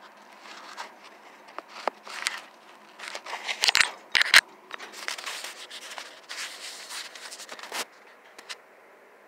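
Handling noise: irregular clicks, scrapes and rustling from a phone being moved about, stopping about eight seconds in.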